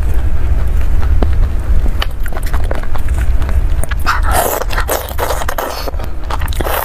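Close-miked eating sounds: small clicks and rustles of gloved fingers picking through chili flakes, then a loud burst of biting and chewing on chili-coated food about four seconds in. A steady low hum runs underneath.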